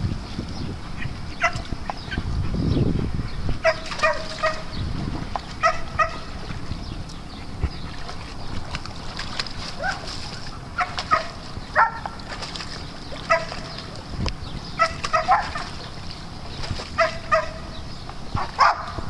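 Dogs yipping in short, high calls that come in quick clusters of two or three every second or two.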